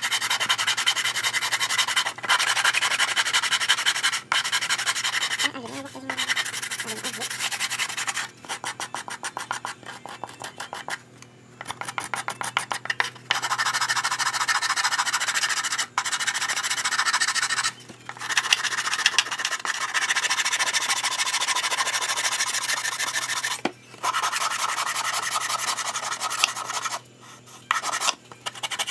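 A wooden sanding block rubbed briskly back and forth over the thin wooden panels of a miniature truck cab, smoothing the surface. The rapid scratchy strokes come in runs of a few seconds with short breaks between them.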